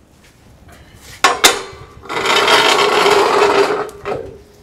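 Two sharp knocks, then a loud scraping rub lasting nearly two seconds, with a shorter scrape just after it.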